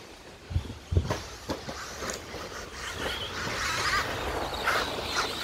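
1/10 electric 2wd RC stadium trucks racing on a dirt track. Two sharp thumps come about half a second and one second in, followed by a few lighter clicks. From about three seconds in, motor whine and tyre noise build and grow louder as the trucks come closer.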